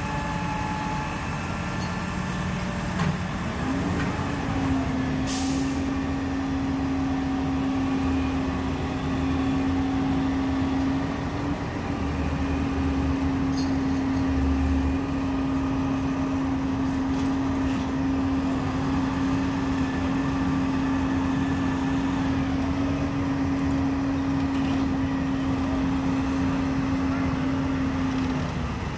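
Utility crane truck engines running steadily, with a strong steady drone that comes in about four seconds in and stops just before the end while the hydraulic crane boom is worked. A short hiss about five seconds in.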